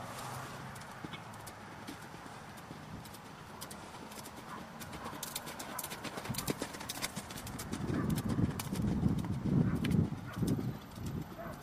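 A horse's hooves striking sand arena footing as it canters under a rider, a string of soft thuds that grows louder about eight seconds in as the horse passes close.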